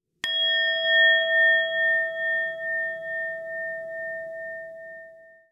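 A singing bowl struck once and left to ring, a low tone with higher overtones, one of them wavering, slowly fading away.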